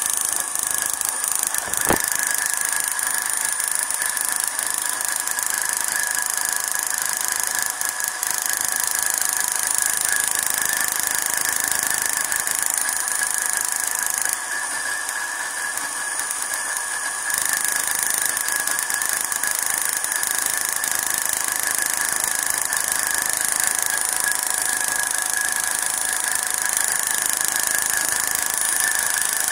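High-voltage spark from a Ford EDIS4 wasted-spark ignition coil pack jumping an open test gap, firing continuously as a steady sound with a faint constant whine. There is one sharp click about two seconds in.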